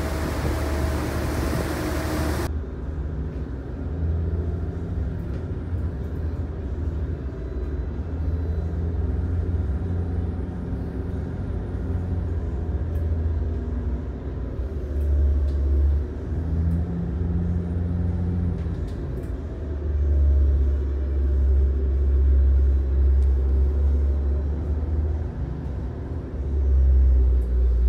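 Pilot launch's engines running in a steady low rumble, heard from inside the wheelhouse, swelling and easing at times as the boat manoeuvres alongside a ship. For about the first two seconds a rush of wind and wash is heard, which cuts off suddenly.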